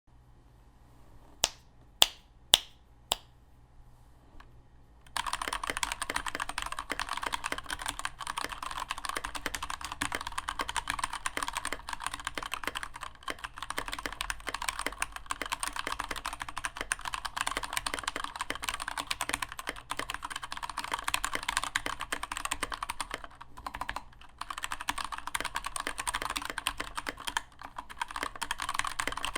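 Unmodded Keychron K2 mechanical keyboard: four single sharp key strikes in the first few seconds, then continuous fast typing with a few brief pauses.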